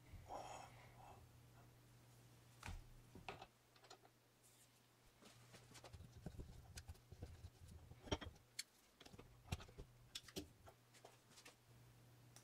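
Faint clicks and knocks of small steel parts being handled on a workbench: a cutting tool made from a piece of leaf spring is set into a lathe tool holder and its clamping screw is tightened with a hand driver. A short metallic ring comes at the very start, and the clicks come irregularly, the sharpest about eight seconds in, over a steady low hum.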